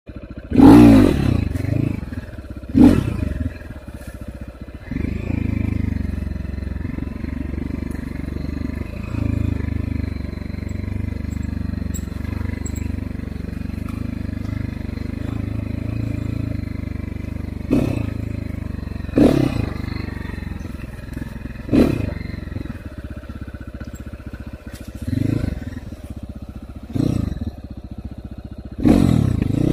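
Dirt bike engine under riding load, revving up sharply in short throttle bursts twice near the start and several more times in the last third, with a steadier run at part throttle through the middle.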